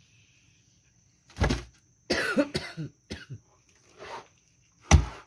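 A person coughing and clearing their throat several times, in separate sharp bursts with a longer rasping stretch in the middle. The loudest cough comes near the end.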